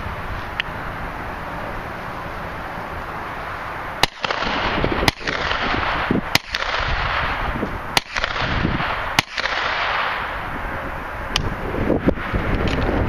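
Ruger PC9 9mm semi-automatic carbine fired six single shots, the first about four seconds in, then spaced roughly one to two seconds apart. A few fainter sharp clicks follow near the end.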